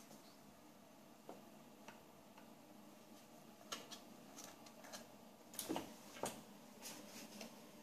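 Faint, scattered clicks and taps of two cats' claws and paws scuffling on a tile floor as they wrestle. Sparse at first and busier in the second half, with the loudest couple of knocks a little past the middle.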